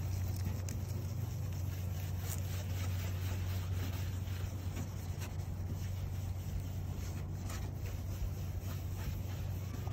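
A lemon half coated in baking soda rubbed back and forth on a cloudy headlight lens, scrubbing off the fog. A steady low hum runs underneath.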